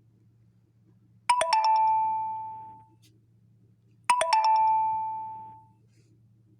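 An electronic two-note chime sounds twice, about three seconds apart, the same each time: a short higher note steps down to a longer lower one that fades out.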